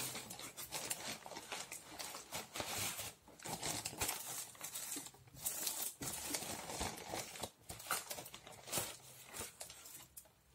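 Plastic packaging crinkling and rustling as a poly mailer bag and bubble wrap are handled and pulled open, in irregular crackly bursts.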